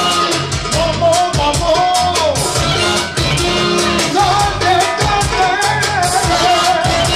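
Loud dance music: a wavering lead melody over a fast, steady drum beat and a pulsing bass line.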